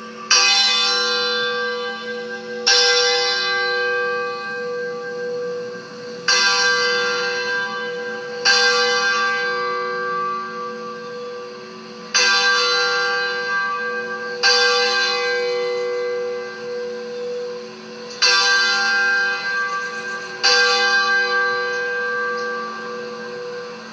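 A church bell tolling: eight strokes in pairs, the two strokes of each pair about two seconds apart, each one ringing on and slowly dying away.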